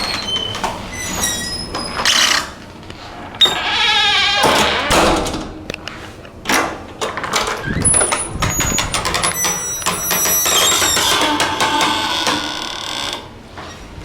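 Creaky doors with Sargent door closers swinging open and shut: drawn-out creaks and squeals that waver and glide in pitch, mixed with sharp clicks and knocks of the mortise latches and the doors closing.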